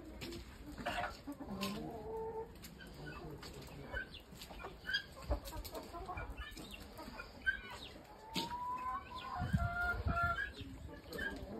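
A flock of domestic chickens clucking, with many short calls and one longer rising call around eight seconds in. A few low thumps sound near the end.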